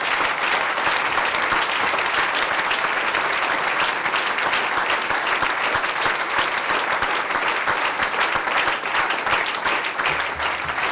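Audience applauding steadily: dense clapping that eases a little near the end.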